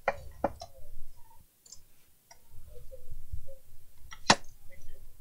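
Clicks and knocks of a desktop PC power supply's sheet-metal case being handled and its cover moved, with low handling rumble between them and one sharp click about four seconds in that is the loudest.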